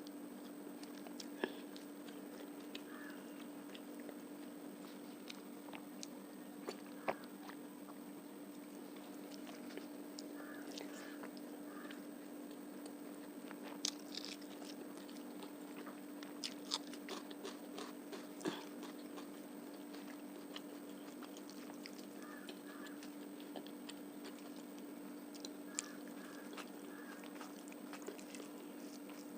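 Close-up chewing and biting of fish curry, rice and onion: scattered wet clicks and small crunches at an irregular pace over a steady low hum.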